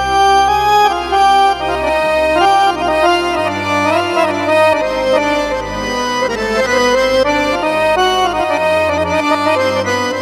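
Accordion voice of a Yamaha PSR-A5000 arranger keyboard, from an Arabic accordion sound pack, playing a quick ornamented melody over held bass notes that change a few times.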